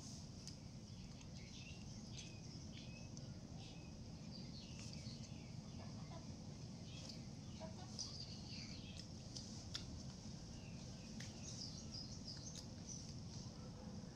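Faint, scattered short high chirps of small birds over a steady low background hum, with a few light clicks.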